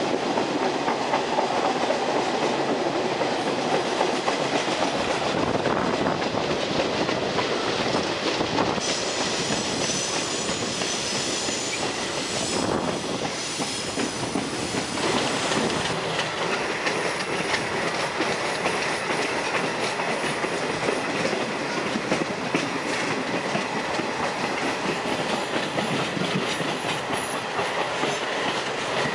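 Passenger train riding along the track at speed: a steady rumble of wheels on rails with clickety-clack over the rail joints. A high, thin wheel squeal comes in about nine seconds in and fades around fifteen seconds.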